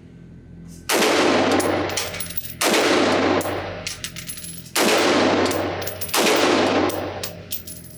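Four single shots from a Sig Sauer M400 AR-15 pistol in 5.56 with an 11.5-inch barrel, fired at an uneven pace one to two seconds apart. Each shot echoes for about a second in the indoor range, and a few light clinks follow near the end.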